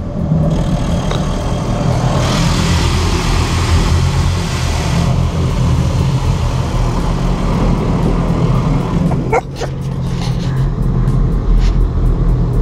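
Automatic car wash heard from inside the car: water spray hissing against the body and windshield over a steady low rumble of the wash machinery, the spray heaviest about two to five seconds in. A brief squeal about nine seconds in.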